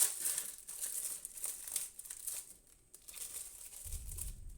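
Frozen pasta meal's packaging being torn open and crinkled by hand, in irregular crackly rustles with a short lull about three seconds in. A low rumble of thunder comes in near the end.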